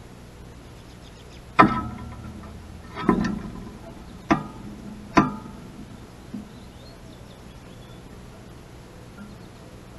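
Four sharp knocks with a short metallic ring as an American robin lands on and shifts about on a hanging plastic dish feeder and its metal hanger.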